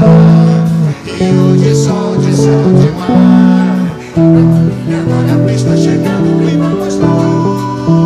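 Music led by a guitar playing chords, the harmony changing every half second to a second.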